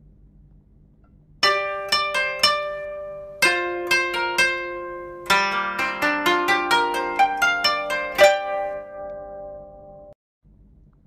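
Background music: a gentle melody of plucked-string notes, each struck sharply and ringing away, beginning about a second and a half in and stopping shortly before the end.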